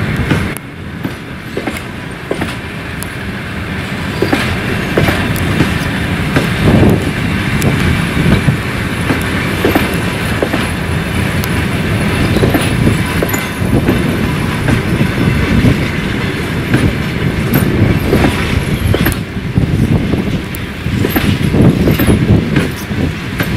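Russian Railways passenger coaches rolling past close by: a steady rumble of steel wheels on the rails, with the repeated clatter of wheel sets knocking over rail joints.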